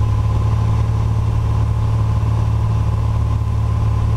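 Piper PA-28-236 Dakota's six-cylinder Lycoming O-540 engine and propeller making a steady, even drone, heard inside the cabin in flight.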